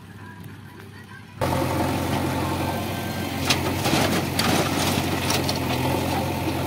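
Faint outdoor background, then, about a second and a half in, a JCB 3DX backhoe loader's diesel engine running steadily close by. Near the middle comes a clatter of soil and clods dropping from its bucket into a tractor trolley.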